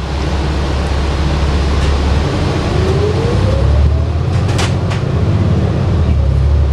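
Cabin sound of a New Flyer XD60 articulated diesel bus under way: a steady low engine and road rumble, with a thin whine rising in pitch about midway and a couple of sharp clicks just after it.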